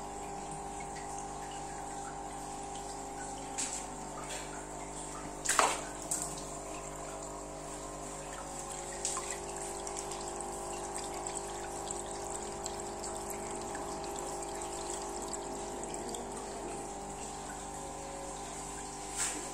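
Aquarium pump running with a steady hum, its outflow splashing and dripping onto the tank's water surface. A few short knocks stand out, the loudest about five and a half seconds in.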